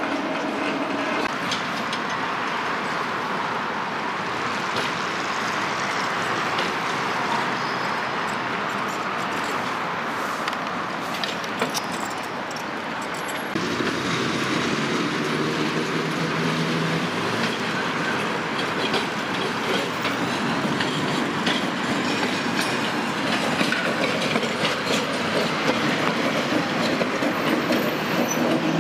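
Moscow trams running on street track: a steady rolling rumble of wheels on rail, with repeated clicks and rattles over the rail joints. About 14 seconds in the sound changes to a lower, fuller running noise with a faint motor hum as a vintage tram moves along the track.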